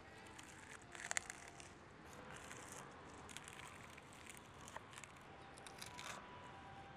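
Chef's knife slicing through crisp fried chicken (tatsuta-age) on a wooden cutting board: a scattering of faint crunches and clicks from the coating giving way under the blade.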